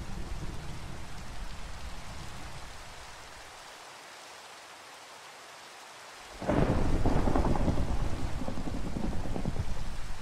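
Steady rain with thunder: a rumble of thunder dies away over the first few seconds, leaving the hiss of rain, then a sudden loud thunderclap breaks about six seconds in and rolls on.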